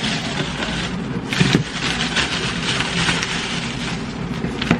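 Thin plastic carrier bag crinkling and rustling as food containers are unwrapped and lifted out of it, with a soft knock about a second and a half in.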